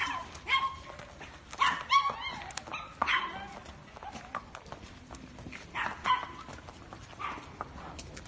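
A dog barking repeatedly in short bursts over a horse's hooves clip-clopping on cobblestones.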